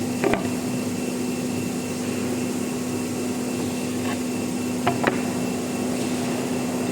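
Woodworking CNC machinery running steadily: a constant hum with a hiss over it, broken by two short knocks, one just after the start and one about five seconds in.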